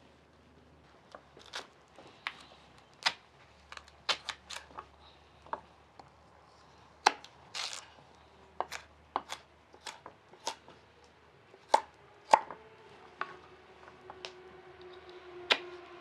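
Kitchen knife dicing raw potato and carrot on a wooden cutting board: irregular sharp knocks of the blade striking the board, about one or two a second.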